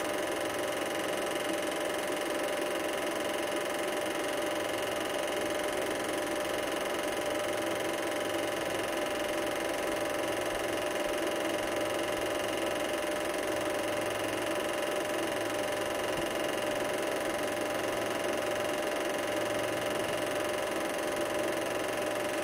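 Super 8 film projector running: a steady mechanical whir with a constant hum that never changes in pitch or level.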